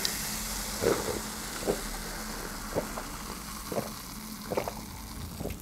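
Freshly poured Sprite fizzing in a glass, a steady hiss of bubbles slowly fading, with about five gulps of the fizzy drink being swallowed roughly a second apart, close to the microphone.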